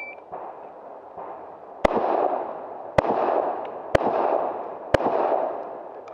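Four pistol shots fired about a second apart during a timed USPSA stage run. Each crack is followed by a ringing echo that dies away.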